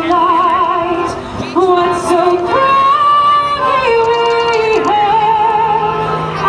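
Music with a solo singer holding long notes with a wide vibrato, moving between sustained pitches over an accompaniment.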